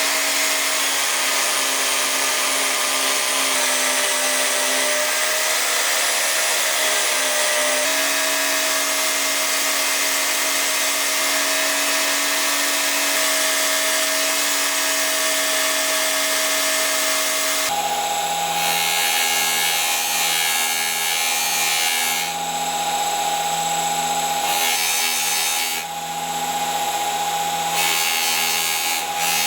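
Electric power tool running steadily with a motor whine, its pitch sagging briefly as it takes load. It changes abruptly twice, about a third and about two thirds of the way in, to a different steady motor tone with a lower hum, dipping in level a couple of times near the end.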